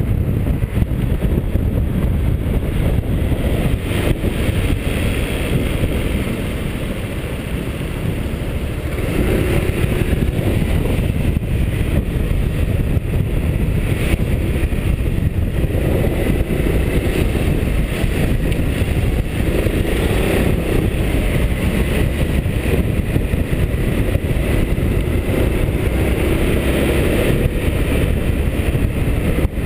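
Honda SH300i scooter riding in city traffic: a steady low rumble of wind and road noise on the scooter-mounted camera's microphone, over the single-cylinder engine, whose note comes up briefly several times as the scooter speeds up.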